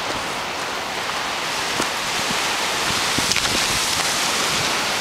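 Steady rush of wind and waves on a rocky shore, an even hiss with a few faint ticks.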